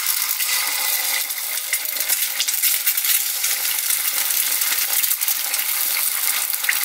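Eggs frying in hot oil in a nonstick egg pan: a steady, dense sizzle full of fine crackling and spitting.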